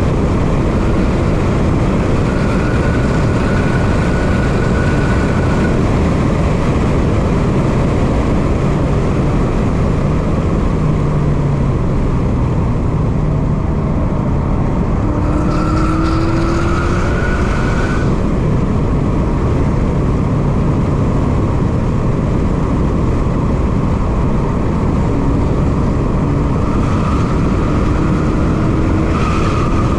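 2017 Subaru WRX STI's turbocharged 2.5-litre flat-four engine pulling hard on a race track, heard from inside the cabin. The engine note rises in pitch twice under acceleration, over a steady loud rush of road noise.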